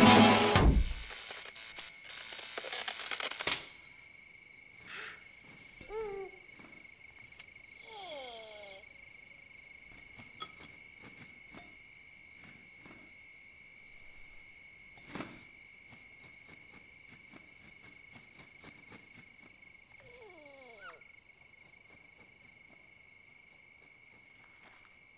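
Faint night ambience of crickets chirring steadily, with scattered soft clicks and a few short falling squeaks. Guitar music fades out in the first second, and a rush of noise cuts off sharply about three and a half seconds in.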